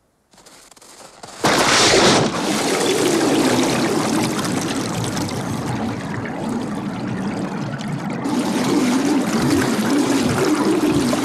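A sudden loud splash about a second and a half in as a man plunges through thin ice into water, then steady underwater churning and bubbling.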